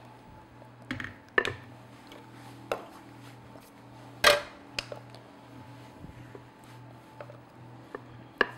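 Metal cake pans clunking as they are set on and lifted off a kitchen scale and the counter, with a spatula scraping batter out of a mixing bowl. About six sharp knocks, the loudest about four seconds in, over a faint low hum.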